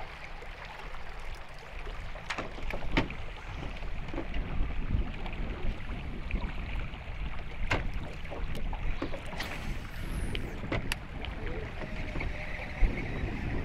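Wind buffeting the microphone over river water lapping against a small boat, with a few separate sharp clicks and taps.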